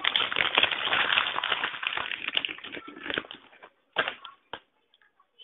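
Dense crackling and rustling from close handling, stopping about three seconds in, then a few separate clicks.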